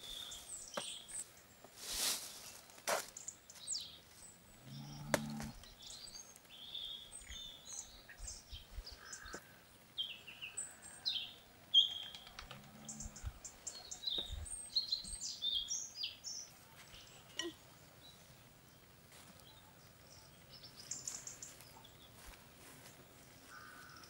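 Wild birds chirping and calling in short scattered notes, over soft rustles and taps of hands dredging pieces of fish in a glass bowl of flour.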